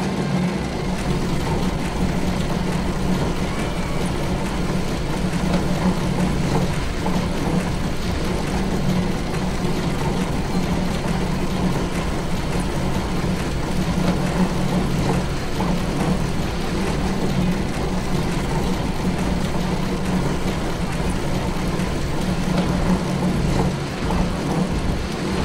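Factory conveyor machinery running: a steady low hum over a constant mechanical noise that does not change.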